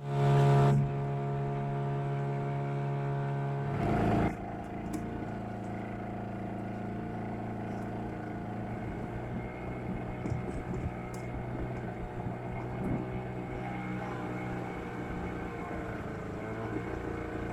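Fishing boat's motor running steadily, with a brief louder surge about four seconds in.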